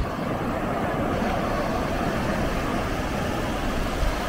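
Rough surf breaking on a sandy beach, whipped up by a nearby typhoon: a steady rushing noise with a low rumble underneath.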